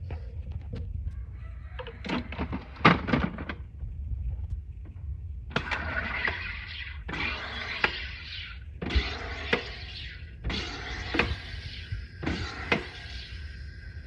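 SodaStream sparkling water maker being worked: a few knocks and clicks of handling, then five short hissing spurts of CO2 gas, each lasting up to about a second.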